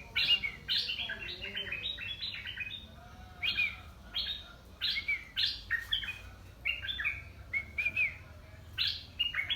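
A caged decoy merbah lekir bulbul singing in phrases of quick, bubbly chirps, with short pauses between the phrases.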